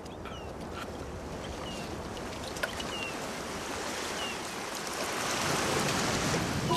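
Small waves washing onto a sandy beach as a steady rush, with a few faint short high chirps. Near the end, water poured from a plastic jug splashes over the wrapped calf and the rush grows louder.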